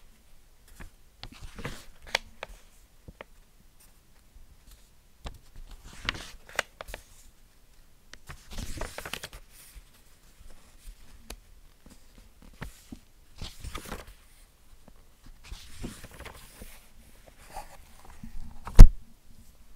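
Pages of an old hardback book being turned one after another, each turn a short papery rustle with a crisp flick, every few seconds. Near the end comes a single sharp, heavier thump.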